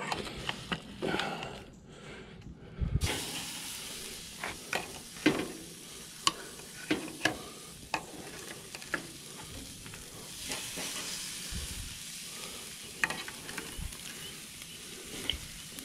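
Ribeye steaks sizzling as they are laid on the hot grate of a charcoal grill to sear, the sizzle starting about three seconds in and carrying on steadily, with scattered clicks and scrapes of metal tongs and spatula against the grate.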